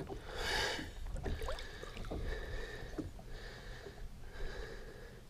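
Lake water sloshing and lapping as a musky is held alongside the boat to revive it, with a brief splash about half a second in and a few small drips and plinks after.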